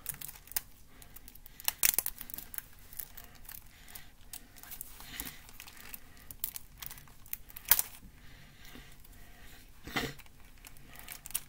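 Packaging on a CD box set being picked and peeled open by hand, with soft crinkling and tearing broken by irregular sharp crackles, the loudest about two, eight and ten seconds in.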